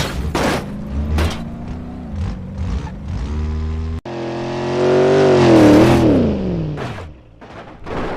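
Car engine sound running steadily. After an abrupt break about halfway through, a louder rev swells, wavers in pitch and dies away about a second before the end. A few sharp clicks sound over it.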